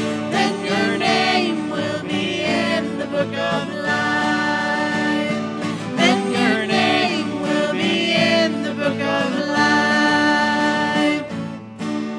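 Country-style gospel music with strummed acoustic guitar and a wavering lead melody over sustained chords.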